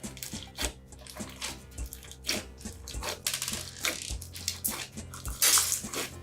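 Irregular wet clicks, squelches and crackles of soft play material being worked by hand, over quiet background music, with a louder crackling stretch near the end.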